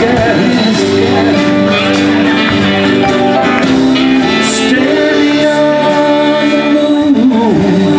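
Live band playing in a club room: saxophone holding long notes over acoustic and electric guitar and keyboard.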